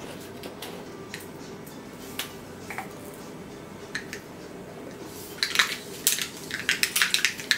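Mustard seeds spluttering in hot coconut oil in a small iron pan: a few scattered pops at first, then rapid, crowded popping from about five seconds in as the seeds burst in the heat, the sign that the oil is hot enough for tempering.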